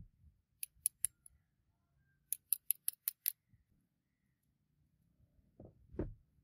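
Light, sharp metallic clicks from gold-plated revolver parts handled in gloved hands: a few clicks about a second in, then a quick run of six at about five a second. Dull knocks follow near the end.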